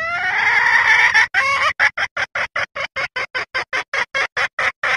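Junglefowl hen's mating call, as used as a lure to draw in cocks: a drawn-out, wavering call for about a second, then a fast, even run of short clucks, about four or five a second.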